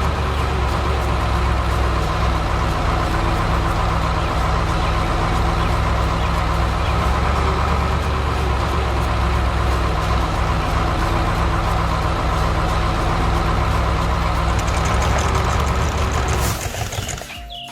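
Heavy vehicle engine sound effect running steadily at idle, stopping shortly before the end.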